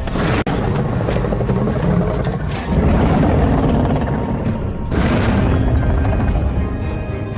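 Loud, deep creature sound effect for a griffon-lion beast. It starts abruptly, with a rumbling, bass-heavy growl that dips briefly about half a second in and surges brighter around five seconds.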